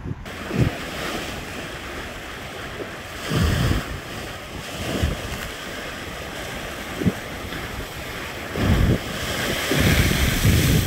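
Lake Michigan waves breaking and washing over a concrete breakwater and shore slabs, with a splash near the end. Wind buffets the microphone in gusts, adding low rumbling surges over the steady wash of the surf.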